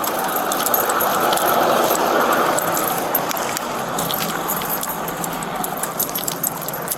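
Keys and metal gear jangling with movement in quick, irregular clinks, over a steady rush of background noise.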